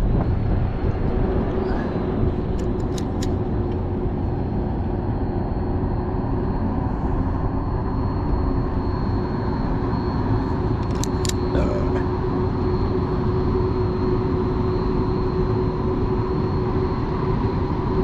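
Steady engine hum with a constant drone, over a dense low rumble of wind on the microphone. A few faint sharp clicks come about three seconds in and again around eleven seconds.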